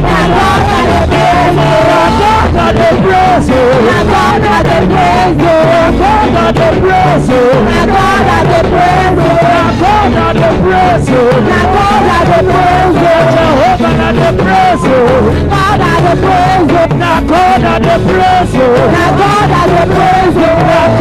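Loud gospel praise music from a band with a steady drum beat, and a voice singing over it.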